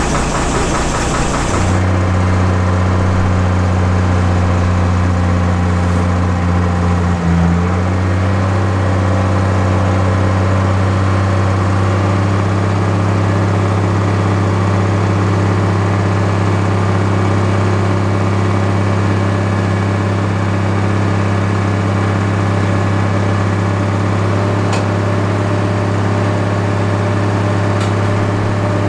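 An old lorry's engine idling with a steady, even low hum. A rougher, noisier engine sound fills the first couple of seconds before the steady idle takes over.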